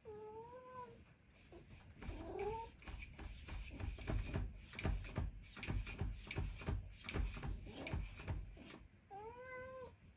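Minuet cat meowing at a closed door: a wavering meow at the start and a short rising cry about two seconds in. Then a few seconds of rapid, irregular scratching and pawing at the door, and one more meow near the end. These are the calls of a cat left alone, crying after its owner.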